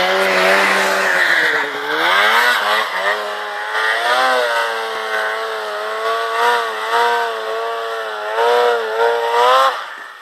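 Snowmobile engine running at high revs, its pitch dipping and rising with the throttle, then stopping abruptly near the end.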